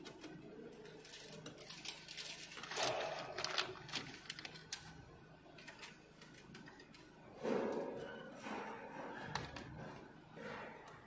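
Light clicks and handling noises of lugged earth wires being fitted and screwed onto an earth bar, with a few brief rustles.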